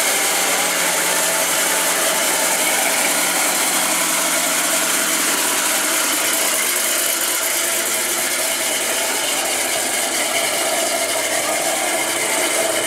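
Henry J gasser's 392-cubic-inch V8 running at low speed with a steady, rattly exhaust note as the car pulls away.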